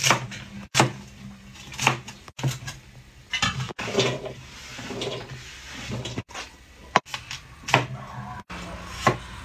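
Cleaver knocking on a wooden cutting board at irregular intervals while celery and then potato are cut, with a steel bowl handled in between.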